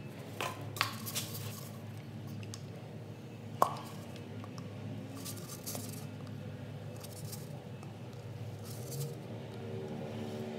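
Thin plastic drink bottle being handled and pierced with a hot soldering iron: short crackly rustles and small clicks, with one sharp tap about three and a half seconds in, over a steady low hum.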